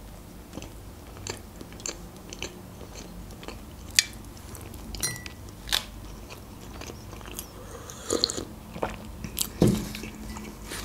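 Close-miked mouth sounds of a woman chewing a bite of cherry pie: irregular clicks and smacks, with a few louder ones about four seconds in and again near the end.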